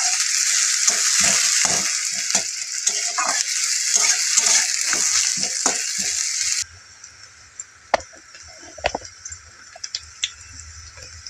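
Sliced onions and whole cumin sizzling in hot oil in a metal kadai, with a steel spatula scraping and clinking against the pan as they are stirred. The sizzle cuts off suddenly about two-thirds of the way through, leaving only a few spatula clicks and knocks.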